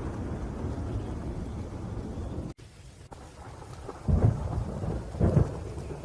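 Rainstorm with thunder: a heavy low rumble under the rain cuts off abruptly about halfway through, like an edit in the recording. It comes back quieter, then two loud thunder rumbles come a second apart near the end.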